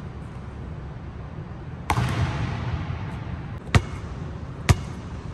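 Basketball landing on the hardwood court and bouncing, three impacts that come closer together each time. The first is followed by a long echo through the large empty arena.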